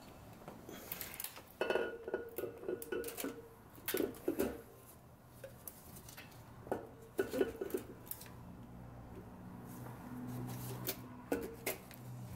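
Aluminium cylinder head of an LS7 V8 being lowered onto the engine block and shifted into place by hand: a series of metallic clinks and knocks, some with a short ring, in several clusters.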